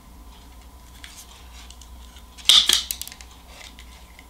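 Self-adjusting hand wire stripper squeezed on speaker wire, giving one short sharp snap as it grips and pulls off the insulation about two and a half seconds in, with faint handling ticks around it.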